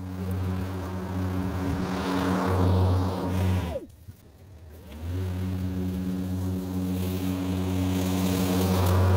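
Hart 40V battery-powered 20-inch lawn mower running, its electric motor and blade giving a steady hum. About four seconds in, the motor winds down with a falling pitch, goes quiet for about a second, then spins back up and runs on.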